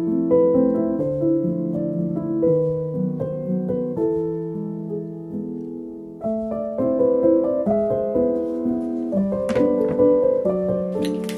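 Background piano music, a steady run of notes. Near the end, short hisses of an aerosol spray-paint can come in.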